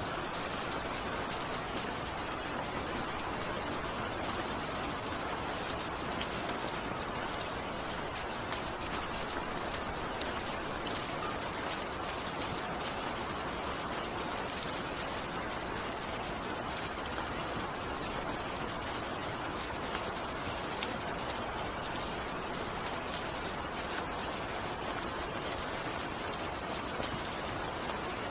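Steady rain falling, an even hiss with many scattered sharper drop hits.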